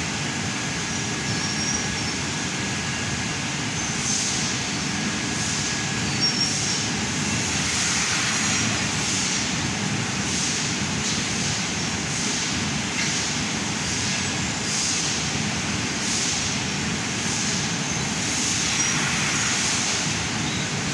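Laser tube-cutting machine running steadily. From about four seconds in, short hissing bursts come roughly once or twice a second as it cuts.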